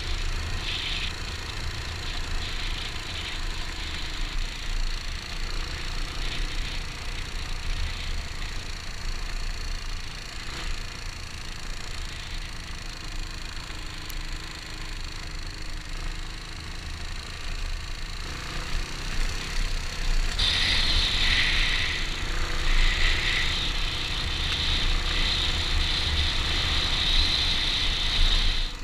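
Kawasaki KLR dual-sport motorcycle riding a gravel road: the single-cylinder engine runs steadily under a continuous crunching rattle of tyres on loose gravel. The rattling grows louder about two-thirds of the way through.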